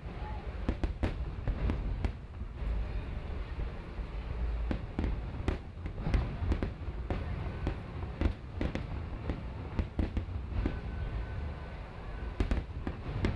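Aerial fireworks display: shells bursting in quick succession, a string of sharp bangs and crackles over a continuous low rumble.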